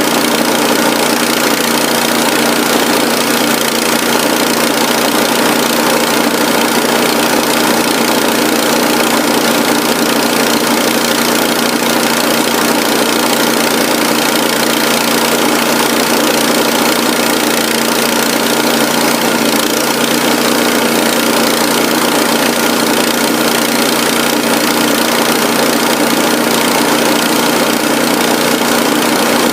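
Small engine of a remote-controlled lawn mower running at a steady speed, with no change in pitch or level.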